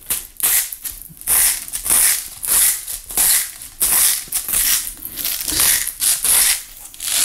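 Hand salt mill grinding Himalayan pink salt crystals, in short rasping bursts about twice a second as the top is twisted back and forth.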